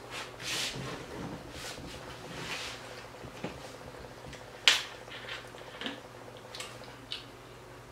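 Close-miked chewing and mouth sounds from someone eating, with a few sharp clicks and taps, the loudest about five seconds in.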